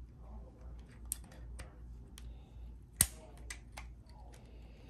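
Small scattered clicks and taps of plastic and metal as the Glock 22's Hogue grip and magwell flare are handled and worked with a small metal tool, with one sharper click about three seconds in.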